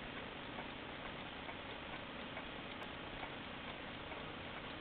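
American pendulum alarm clock ticking steadily, its ticks faint under a steady hiss; the alarm is not ringing.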